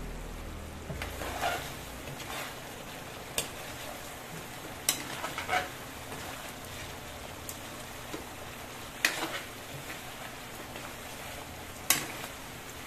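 Food frying in a pan with a steady sizzle, broken by a few sharp clinks of a utensil against the pan.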